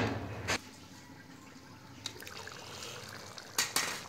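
A glass pan lid knocking against the rim of a cooking pan, once or twice near the start and twice near the end as it is handled. In between, a pan of curry simmering faintly, with a low steamy hiss.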